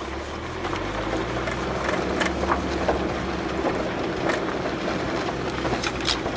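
VW bus driving on a gravel road, heard from inside the cab: a steady engine drone under a haze of tyre and gravel noise, with scattered sharp clicks of stones and rattles.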